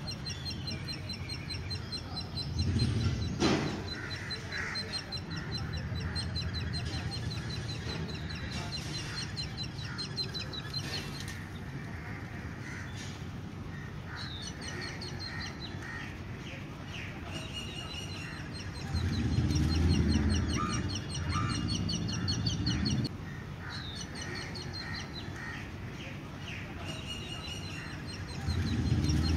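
Several birds calling, with rapid trains of short, high chirps throughout. A low rumble comes up about two-thirds of the way in and again near the end, with a single click a few seconds in.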